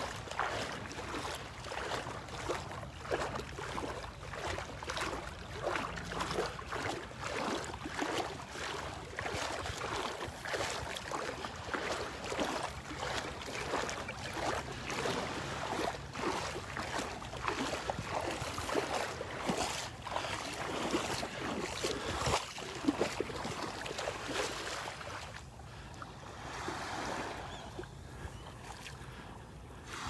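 Footsteps splashing through shallow water at the shoreline at a walking pace, with gentle surf lapping. The splashing thins out over the last few seconds.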